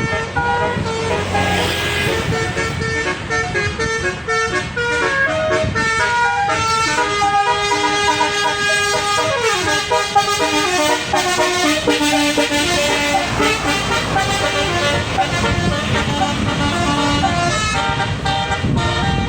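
Bus basuri 'telolet' horn, a multi-trumpet electric horn, playing a tune of stepped notes, often several at once, with a run of falling notes about halfway through.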